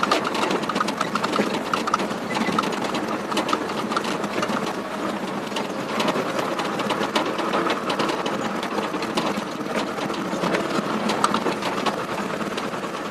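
Truck engine running while driving over a rough dirt track, heard from inside the cab, with a steady fast clatter and frequent rattles and knocks.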